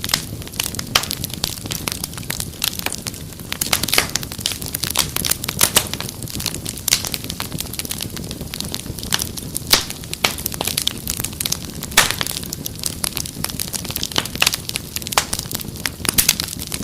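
Wood fire crackling, with irregular sharp snaps and a few louder pops over a steady low rumble of flames.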